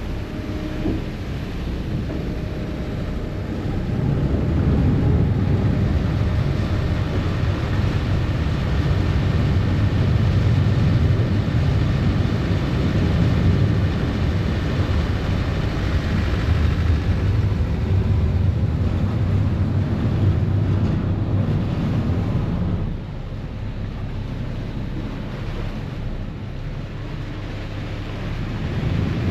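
Harbour ferry's engines rumbling low as the boat manoeuvres in to berth at a wharf. The rumble grows louder about four seconds in, eases off well past halfway, and picks up again right at the end.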